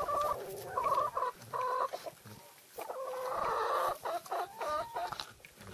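A farm animal calls in a series of short, pitched calls, about five of them, the longest lasting about a second from about three seconds in.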